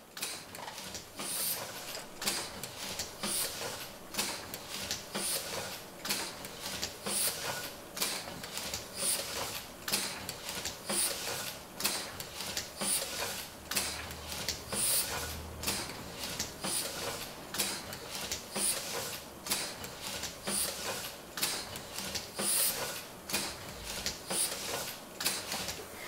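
Letterpress platen printing press running, its platen, gripper mechanism and ink rollers clacking in a steady repeating cycle.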